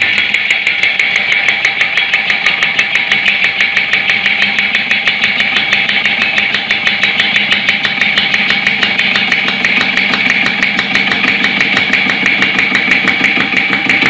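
Single-piston car-wash pressure pump running steadily with the nozzle taken off, its piston knocking in a rapid, even beat. Without the nozzle it runs easily with no load, only pushing water out of the open hose.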